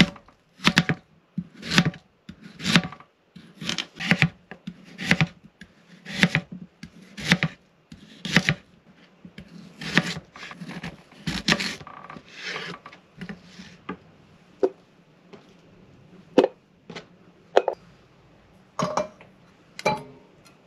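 Hand food preparation in a small kitchen: rhythmic rubbing strokes against a board, about one a second for the first eight seconds, then a quicker cluster, then a few scattered strokes.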